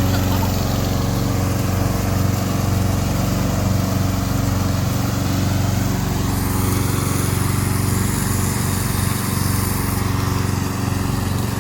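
Tracked remote-control slope mower's Yamaha 7.5 hp petrol engine running steadily.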